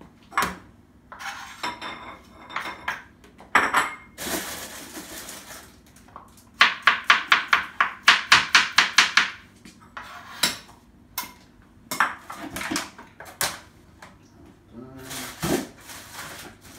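Kitchen knife slicing banana and radish on a plastic cutting board: sharp knocks of the blade on the board, some single, some in a quick run of about five a second a little past the middle, with a couple of seconds of rough scraping noise about four seconds in.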